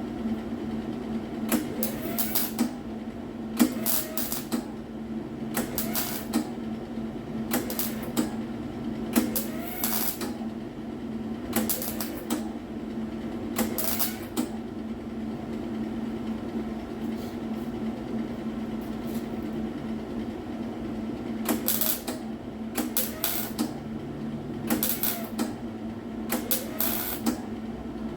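Welder laying a series of short welds on the replacement quarter panel's sheet metal: crackling bursts of about half a second each, every couple of seconds, with a pause of several seconds in the middle, over a steady low hum.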